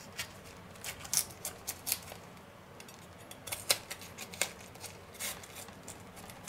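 Large kitchen knife cutting the core out of a half head of white cabbage: short, irregular crisp crunches as the blade cuts through the firm leaves.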